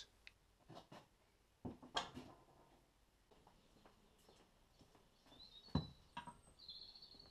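Mostly near silence, broken by a few faint knocks as motorcycle exhaust pipes are handled and laid on a wooden bench. A bird chirps faintly near the end.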